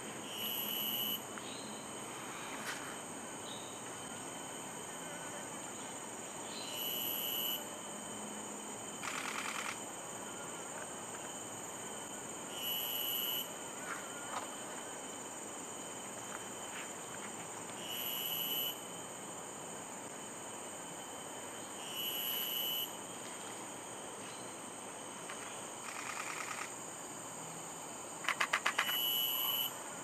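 Woodland insects droning steadily at a high pitch. About every five seconds a short high tone repeats, and there are a few bursts of rapid ticking.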